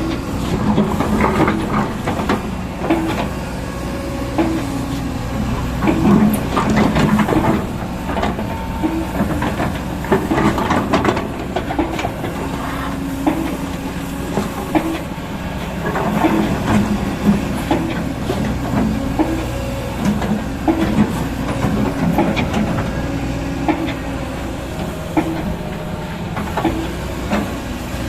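Excavator's diesel engine running steadily under work, with frequent clanks and clatter from the machine as it digs.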